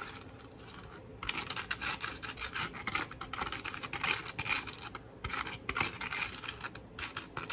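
Crinkling and rustling of kitchen wrap as it is handled around a glazed ham, in irregular scratchy bursts that start about a second in, with brief pauses.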